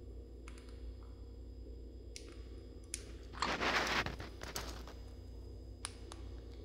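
Sun conure eating: scattered sharp beak clicks and taps, with one louder scratchy crunching burst about three and a half seconds in.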